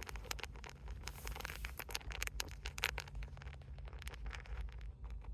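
Rustling and scraping of things being handled, with many small clicks and taps, over a low steady hum.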